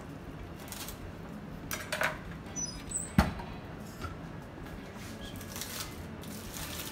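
Aluminium-foil parcels of corn on the cob being handled and set down on a stainless steel tray: scattered foil crinkles and light clicks, with one sharp knock about three seconds in.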